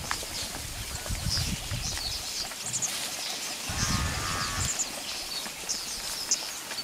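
Small birds chirping repeatedly in the bush. There is low rumbling about a second in, and a short low animal call about four seconds in.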